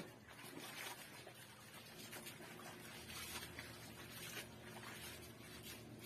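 Laundry being washed by hand in a basin: wet fabric scrubbed and wrung, with faint, irregular splashes and drips of soapy water.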